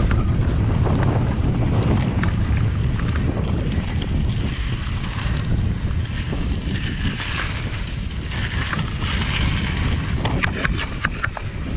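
Wind buffeting an action camera's microphone over the steady rumble of a Trek Fuel EX full-suspension mountain bike rolling on a dirt singletrack, with a few sharp rattling clicks near the end.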